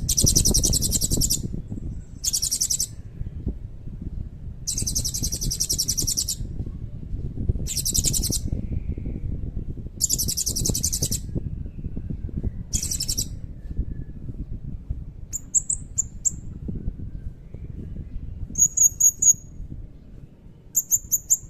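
Blue-crowned hanging parrot (serindit) singing. Six bursts of rapid, very high-pitched trilling come in the first two thirds, each up to about a second and a half long, followed by a few short, sharp high chirps. A steady low rumble runs underneath.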